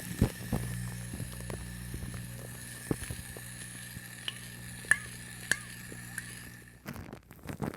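Shaving foam on a microphone: scattered wet pops and clicks over a steady low hum. The hum cuts off near the end, giving way to dense crackling foam.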